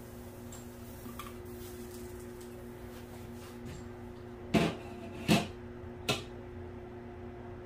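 Three sharp clatters of kitchenware, a little under a second apart, over a steady electrical hum. They come just after the metal lid is lifted off an electric injera griddle.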